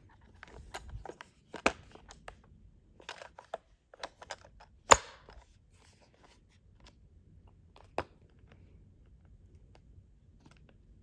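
Plastic drill bit case and its metal bits being handled: a scatter of small clicks and rattles, with a sharp snap about five seconds in and another about eight seconds in.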